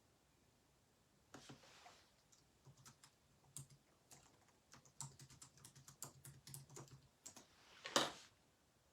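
Faint typing on a computer keyboard: an uneven run of quick key clicks, with one louder click near the end.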